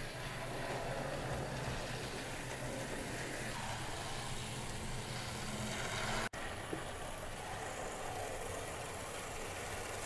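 HO scale model locomotive running around the layout track, a steady whirring rumble of its motor and wheels on the rails. The sound breaks off for an instant about six seconds in.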